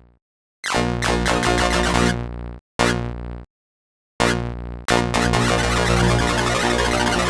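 Electronic synthesizer music that cuts out abruptly several times, with short bursts between the silences, then plays on without a break from about five seconds in.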